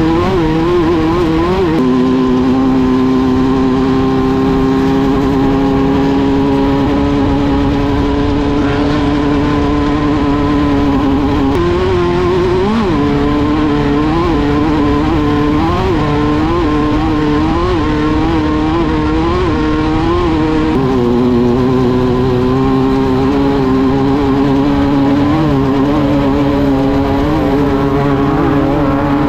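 Engine of a Class 1/2-1600 desert race buggy, an air-cooled VW-based 1600 cc flat-four, running hard under racing load. It holds a steady pitch for about ten seconds, then rises and falls repeatedly as the throttle comes on and off.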